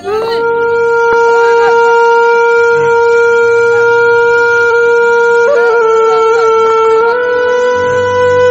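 A single loud, horn-like note held steadily for about ten seconds, stepping slightly up in pitch about seven seconds in; a dubbed-in sound effect rather than anything played in the scene.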